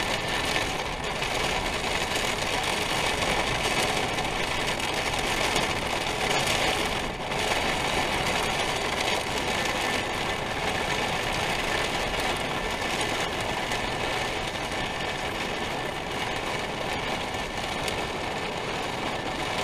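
Heavy thunderstorm rain and wind, a steady dense rush heard from inside an RV.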